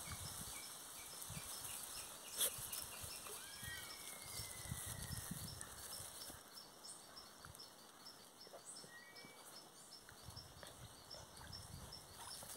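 Quiet pondside ambience: insects chirping in a steady, even rhythm throughout, with a single sharp tap about two and a half seconds in and a faint short call just after it.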